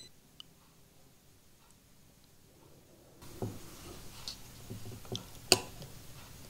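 Near silence for about three seconds, then scattered small clicks and taps of hand tools and wire terminals being handled, with one sharper click about five and a half seconds in.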